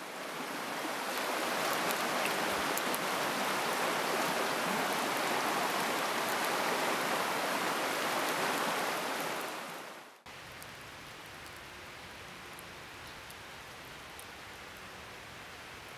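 Rushing water of a shallow river running over rapids, a steady loud rush that fades in at the start and fades out about ten seconds in. After a sudden cut comes a much quieter steady hiss with a few faint ticks.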